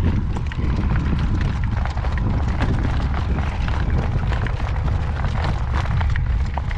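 Strong wind buffeting the microphone in a constant low rumble, with a harness horse's hoofbeats and small clicks and knocks coming through underneath.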